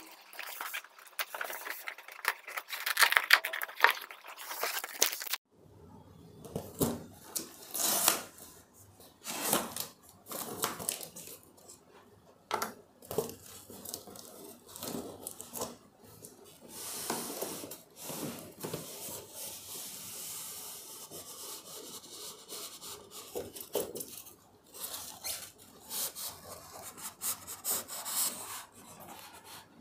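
Hands handling a monitor's cardboard box and its foam and plastic-bagged packing: a string of irregular scrapes, rubs and small knocks.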